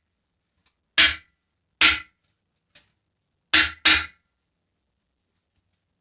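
Four sharp knocks, the last two close together, each dying away quickly.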